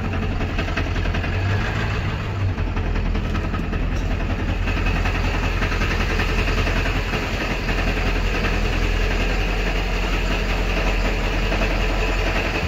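Ford 7.3 L Powerstroke V8 turbo-diesel running at low speed, heard from inside the truck's cab as it creeps forward in gear; its low rumble shifts about two and a half seconds in.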